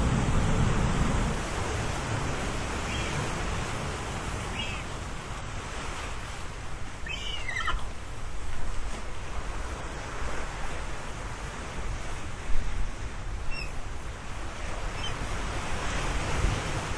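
Ocean surf washing on the shore: a steady rush of breaking waves that eases after the first second or so and builds again near the end. A few brief high-pitched calls sound over it.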